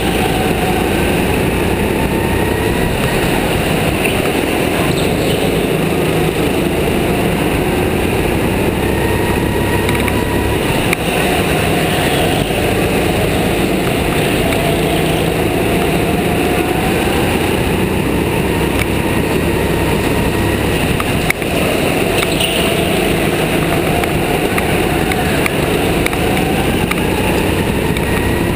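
Go-kart heard from on board, running hard around a track: its motor note rises on the straights and drops back for each corner, over a constant rush of noise.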